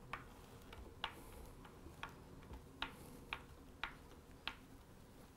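Faint clicks of a stubby Phillips screwdriver turning in a screw head as a strap-button screw is driven into a guitar body, about one a second at first, then about every half second.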